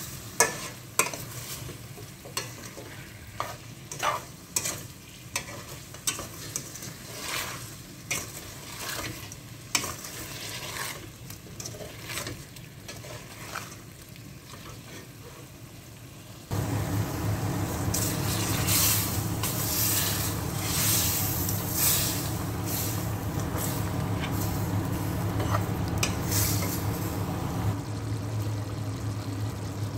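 A black plastic spatula stirs and scrapes chicken pieces frying with spices in a steel pot, making short scraping clicks over a light sizzle. About halfway through, the sound changes to a louder, steady sizzle with a low hum under it, as the chicken cooks in the juices it has released.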